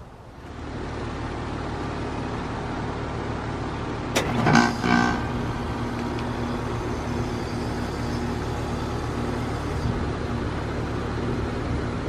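2019 Goodman GSZ14 heat pump outdoor unit in its defrost cycle: its running hum comes up about half a second in. About four seconds in there is a sharp click and a brief, louder burst lasting about a second, and then the steady hum resumes.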